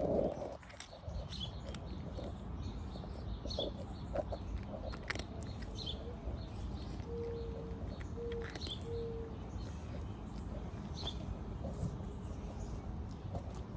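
A cat crunching dry kibble in scattered small clicks, while small birds chirp now and then over a steady low outdoor rumble. Around the middle come three short, low, level hooting notes.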